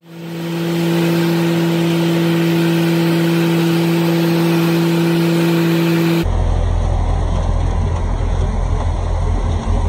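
John Deere X495 lawn tractor engine running at a steady speed, an even drone that holds one pitch. About six seconds in it cuts off abruptly and is replaced by a low rumble.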